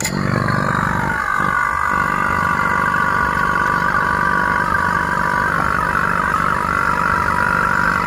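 Wigam electric rotary-vane vacuum pump switched on and running steadily, evacuating an R410A air-conditioning system after its refrigerant has been drained.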